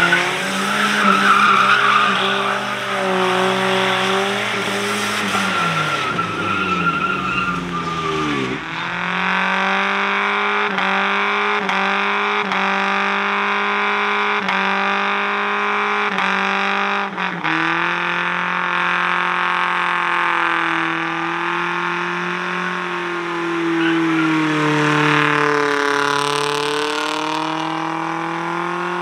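Motor vehicle engine running under steady load, its pitch dropping sharply about eight seconds in, then holding and slowly rising and falling.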